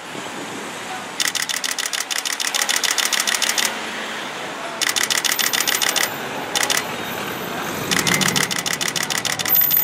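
Camera shutters firing in rapid bursts of continuous shooting, about ten clicks a second, in several runs with short pauses between them, the longest lasting about two and a half seconds.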